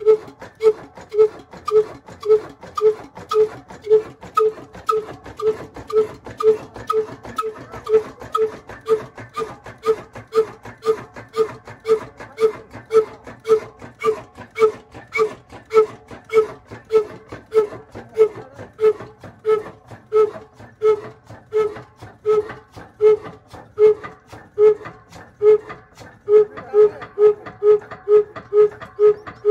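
Old Ruston single-cylinder horizontal oil engine running on a tubewell, its exhaust giving a steady, evenly spaced beat of pitched puffs, about two to three a second. A few seconds before the end the beats come faster and louder as the engine picks up speed.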